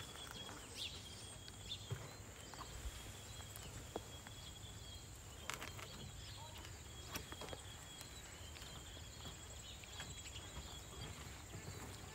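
Faint outdoor ambience: a steady high-pitched chirring and an on-and-off thin high trill, over a low rumble of wind, with a few light taps.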